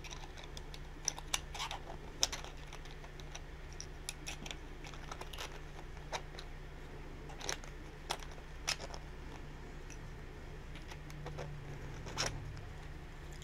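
Irregular sharp plastic clicks and taps as 3D-printed PLA dummy .30-06 rounds are pressed one by one into a 3D-printed M1 Garand en-bloc clip. The soft, flexible PLA clip struggles to hold the rounds.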